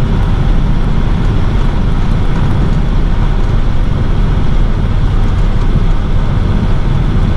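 Steady engine and road noise heard inside a Freightliner box truck's cab while driving, a constant low rumble.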